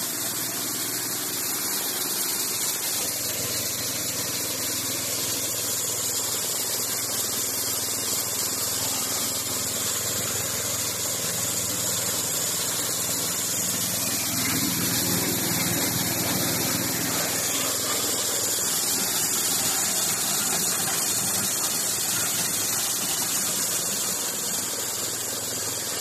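Corn thresher-sheller running under load, driven by a small single-cylinder diesel engine: a steady mechanical din with a hiss over it as cobs are shelled. The low part of the noise swells for a few seconds near the middle.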